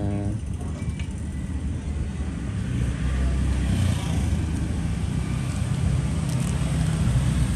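Road traffic rumble, steady low engine noise that grows a little louder about three seconds in, with a few faint clicks.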